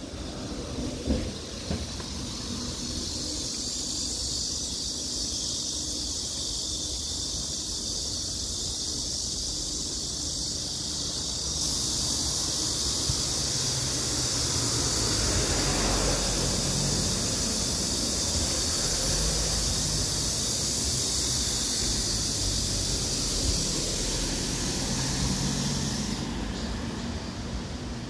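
Cicadas buzzing in the trees, a steady high-pitched drone that gets louder about twelve seconds in and drops back near the end, over a low rumble of wind on the microphone.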